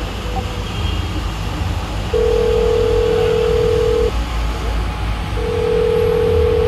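Telephone ringback tone heard through a handset: a steady tone of one pitch sounding for about two seconds, a pause of about a second, then sounding again, over a low background rumble. It is the sign that the called line is ringing and has not yet been answered.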